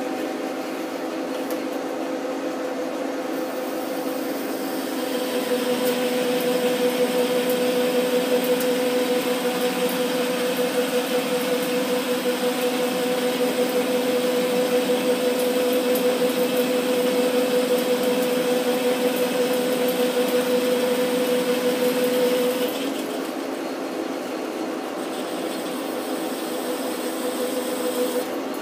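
Metal lathe running under power feed with a steady whine, a left-hand tool turning the outside of a metal tube held in a tailstock chuck. The cutting noise builds a few seconds in and stops about three-quarters of the way through as the tool reaches the end of the cut, while the spindle keeps running.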